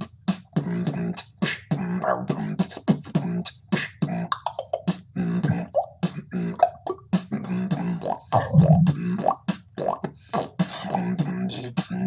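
Human beatboxing into a handheld microphone: a fast run of mouth-made kick, snare and hi-hat sounds with a low hummed tone under the beat.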